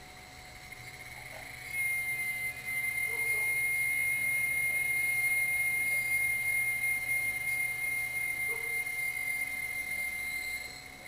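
A night insect calling with a loud, steady, high-pitched trill that starts about two seconds in and cuts off just before the end. Underneath it is the steady chorus of other night insects, with a few short low chirps.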